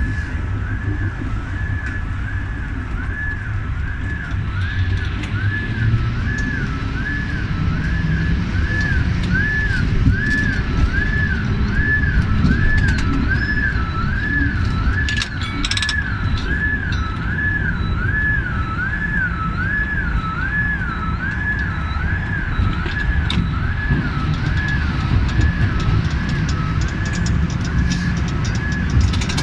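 Two-tone siren alternating steadily between a high and a low note a little more than once a second, without a break, over a low rumble of vehicle noise.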